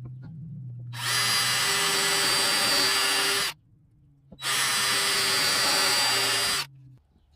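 Power drill running twice, each time for about two and a half seconds with a steady whine, boring pilot holes in lumber so the wood won't crack.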